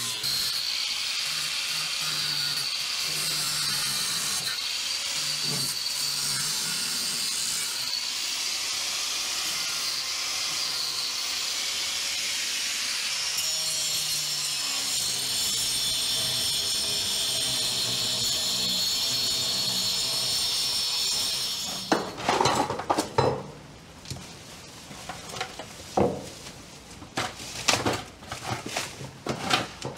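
Angle grinder grinding a fiberglass-covered plywood wall, a steady high whine for about twenty seconds that stops abruptly. Then irregular knocks and rustling as chunks of rotten debris are dropped into a plastic bag.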